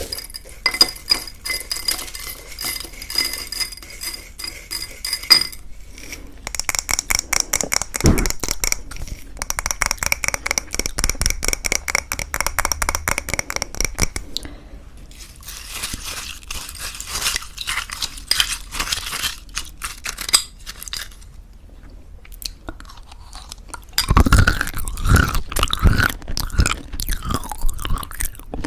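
Close-miked crunching and chewing of homemade granola in thick yogurt, with dense runs of rapid crisp crackles. A stretch of heavier, lower mouth sounds comes near the end.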